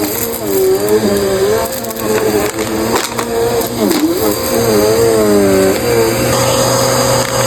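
Bissell CleanView Rewind upright vacuum running, its motor pitch wavering up and down as the airflow changes, with a few crackling clicks of picked-up debris around three seconds in. About six seconds in, the sound settles into a steady whine with more rushing air, as the cleaning moves to the open hose.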